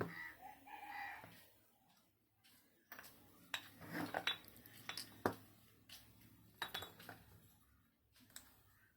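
Light clinks and taps of small tools and parts being handled, a dozen or so irregular strikes over several seconds. In the first second or so, before them, a short pitched call is heard.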